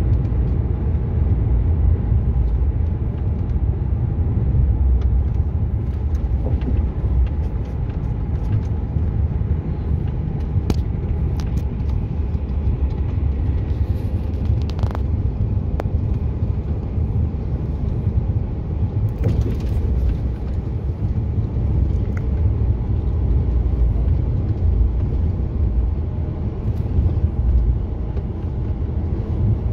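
Heavy truck driving at road speed, heard from inside the cab: a steady low rumble of engine and tyres, with a few faint clicks scattered through it.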